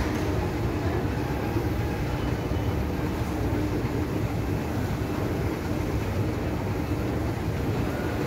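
Moving escalator and metro station ambience: a steady low rumble with a faint steady hum.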